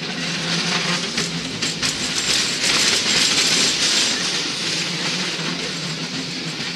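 San Francisco cable car running along its track, heard from aboard: a steady rattling rumble of wheels on rails. It swells louder and hissier for a couple of seconds near the middle, then settles back.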